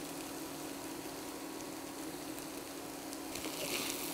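Chopped vegetables sizzling in an oiled skillet with a steady low hiss, turning louder about three seconds in as a wooden spatula starts stirring them.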